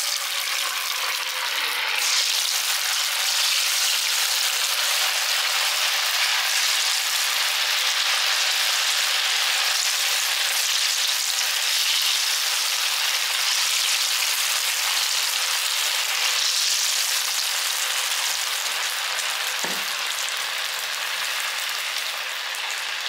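Cornflour-and-masala-coated potato strips deep-frying in hot oil in a kadai: a steady, loud sizzle that grows stronger about two seconds in as the pan fills with pieces.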